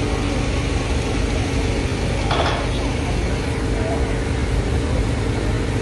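Lion dance drum and cymbals playing a fast, continuous roll.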